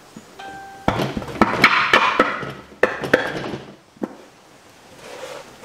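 Metal carriage bolts knocking, clicking and scraping as they are pushed through holes in a plywood board and the board is handled, busiest between about one and three and a half seconds in.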